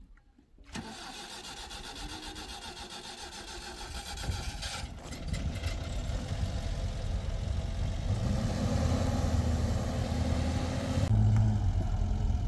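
A car engine starting just under a second in, then running and getting steadily louder, settling into a low steady hum near the end.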